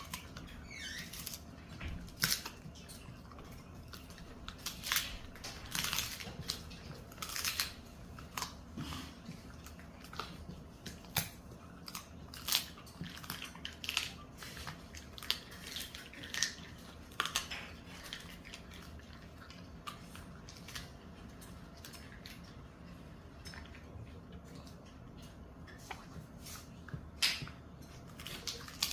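A dog chewing a duck wing treat: irregular sharp crunches and cracks as it bites down, some of them grouped closely, between quieter gnawing.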